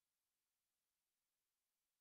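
Near silence: only a very faint, steady hiss from the recording's noise floor.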